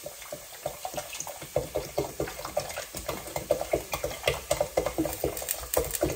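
Sprite poured from a 1.25-litre plastic bottle into a stainless steel pot: the stream splashes into the pot while the bottle glugs rapidly, several short rising glugs a second, growing louder about a second and a half in.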